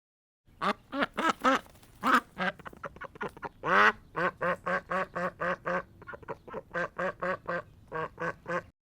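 Duck quacking in a long series of short calls, settling into a steady run of about three quacks a second, with one longer drawn-out quack about four seconds in.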